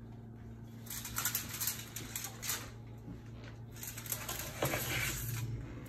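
Aluminium foil crinkling and rustling in irregular crackly bursts, over a steady low hum.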